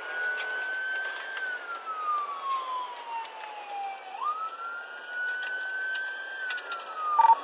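Police car siren in wail mode: a single tone that rises quickly, holds high, then slides slowly down, twice over, sounding from the pursuing patrol car itself.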